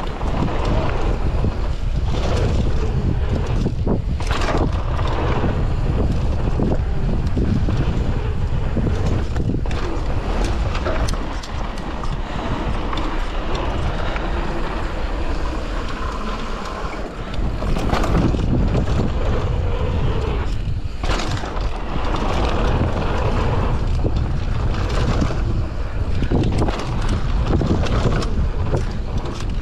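Wind buffeting the microphone of a camera on a mountain bike at speed, over the rumble of knobbly tyres rolling on dirt and gravel. Short knocks and rattles come through as the bike hits bumps along the trail.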